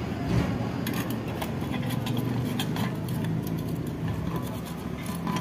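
Groove-joint pliers clicking and scraping on a seized nut on the metal body of a CM4 marble cutter as it is worked to loosen it: a run of small, irregular metallic clinks.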